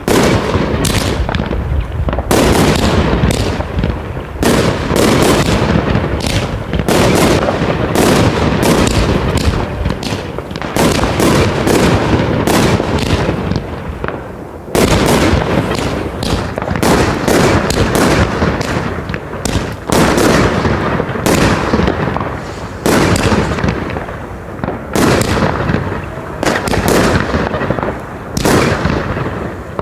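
Consumer firework battery cakes firing a rapid, dense barrage of bangs and crackling bursts, shot after shot overlapping, with brief lulls about four seconds in and near the middle.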